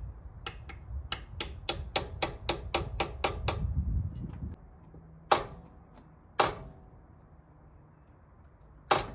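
Hammer driving a seal installer to seat a new inner axle seal in a Jeep Dana 30 front axle tube: a quick run of about a dozen light taps, roughly four a second, then two harder, ringing blows about a second apart, and one more near the end.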